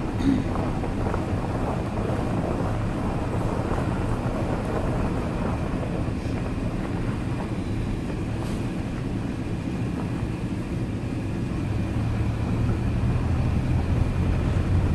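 Pickup truck driving slowly along a gravel road, heard from inside the cab: a steady engine hum with tyre and road noise, getting a little louder near the end.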